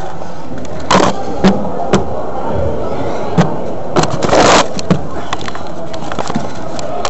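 Handling noise on a handheld camera's microphone: a string of sharp knocks and a longer scrape about four seconds in, over a steady background hiss.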